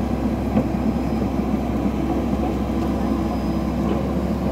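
Tracked excavator's diesel engine running steadily as the machine moves across the muddy ground.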